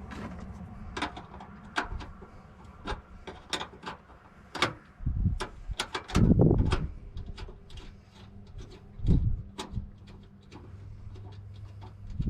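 Irregular sharp metallic clicks and clinks of hand tools working a battery cable eyelet onto its terminal, tightening the connection, with a few dull thumps about halfway through and again later.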